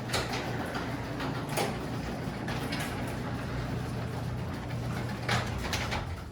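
Genie ProMax garage door opener's motor running with a steady hum while the door moves, with clicks and rattles from the door, then cutting off suddenly at the end.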